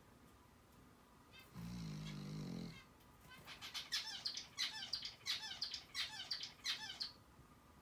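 Snoring in sleep: one low snore lasting about a second, then a quick run of about a dozen high, squeaky chirps, each falling in pitch.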